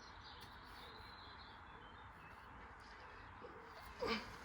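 Quiet background noise with faint, high bird chirps in the first second or two.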